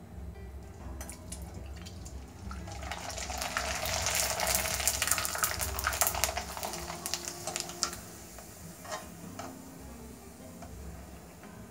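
Sooji (semolina) papad deep-frying in hot oil in a metal kadhai: the oil breaks into a loud crackling sizzle about two and a half seconds in as the papad goes in and is pressed down, then dies down after about eight seconds.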